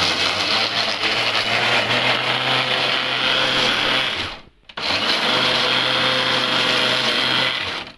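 Electric food processor running at speed, chopping boiled lemon peels. It stops briefly about halfway, then runs again and cuts off just before the end.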